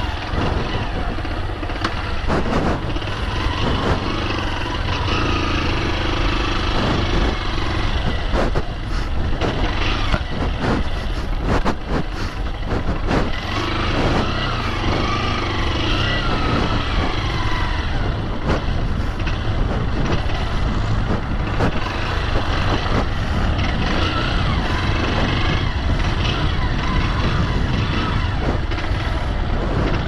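Motorcycle riding along a sandy dirt track, recorded on a helmet-mounted camera: the engine runs under heavy wind rumble on the microphone, with a few short knocks around the middle.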